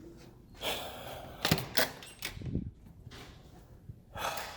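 A door being opened and handled, with sharp latch-like clicks and two loud knocks about a second and a half in, among handling rustle.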